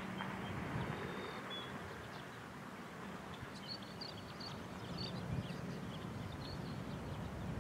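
Steady low outdoor rumble, with a scatter of short, high bird chirps from about three and a half to six and a half seconds in.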